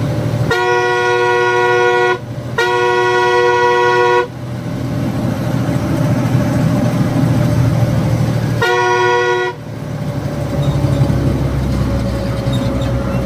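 Truck horn sounded three times on blind mountain bends: two long blasts of about one and a half seconds each, then a shorter one a few seconds later. Under it is the steady running of the truck's engine, heard from the cab.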